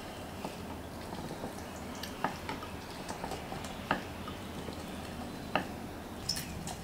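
Orange halves pressed and twisted by hand on a plastic citrus reamer over a glass bowl: soft wet squishing of the fruit, with about four short sharp clicks spread through.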